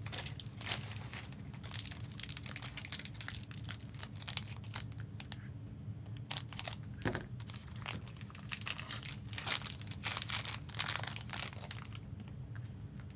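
Trading-card packs and thick cards being handled: foil wrappers crinkling and tearing, with cards clicking and sliding in short, irregular rustles.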